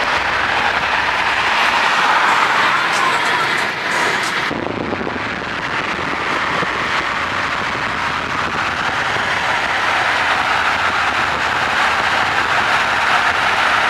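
Steady road and wind noise of a car moving at speed, with an abrupt change about four and a half seconds in.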